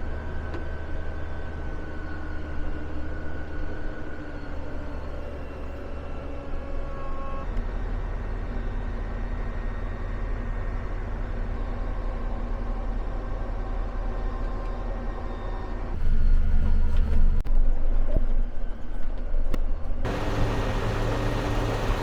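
Steady engine drone of farm machinery running under load, with a low hum and several steady tones. The drone changes abruptly three times, the last two changes louder and lower.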